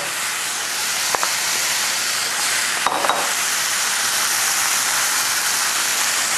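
Diced tomato and okra sizzling steadily in hot oil in a skillet, just added to the pan for stir-frying. A couple of brief clicks come about a second in and again about three seconds in.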